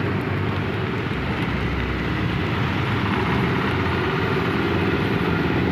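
Steady drone of a moving vehicle's engine with a continuous hiss of tyres and traffic on a rain-soaked road, heard from inside the vehicle.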